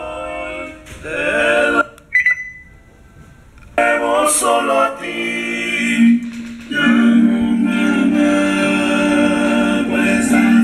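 Small portable Bluetooth speaker playing a song with a singing voice at full volume. The music drops out about two seconds in, broken by one short beep, and comes back strongly about four seconds in.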